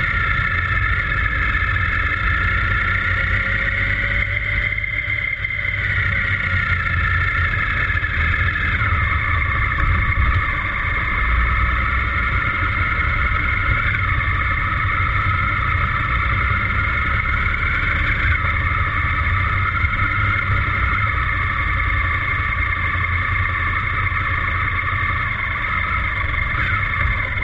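Motorcycle engine running steadily while riding at moderate speed, recorded from a camera mounted on the bike, with a low wind rumble on the microphone. Its pitch drifts and jumps briefly a few times as the rider changes speed.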